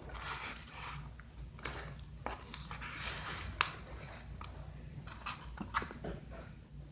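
Sticky glue-and-baking-soda slime being stirred in a bowl, making irregular scraping and squelching noises with scattered clicks against the bowl and one sharper clink about halfway through.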